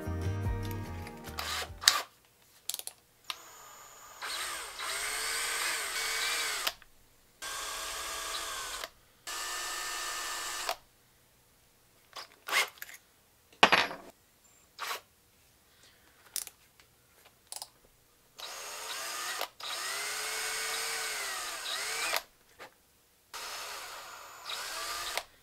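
Ridgid power drill with a twist bit boring into a carved wooden lure body. It runs in several short bursts, its whine rising and falling as the trigger is squeezed and let go. Between the bursts there are a few sharp clicks.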